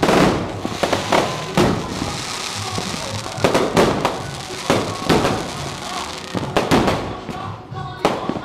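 Aerial fireworks going off in a rapid, irregular string of sharp bangs, a dozen or more over several seconds.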